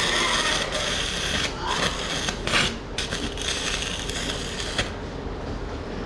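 Electric arc welding: a steady crackling hiss from the arc, which stops about five seconds in.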